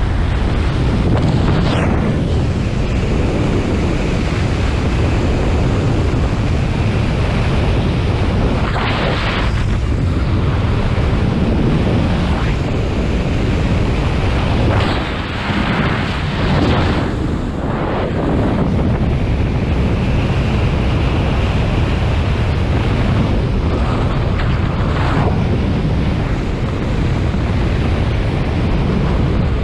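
Heavy wind noise on the microphone from the rush of air in fast flight under a paraglider wing: a loud, steady rushing, swelling and easing with gusts, with a brief lull about halfway.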